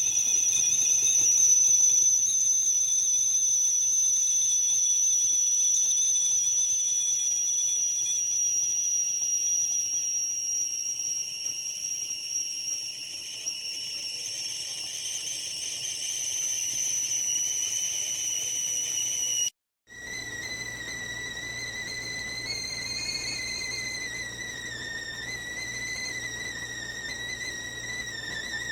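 Primula Stewart stainless steel stovetop kettle whistling at the boil. A steady high whistle sinks slowly in pitch, then after a brief cut a lower whistle wavers gently.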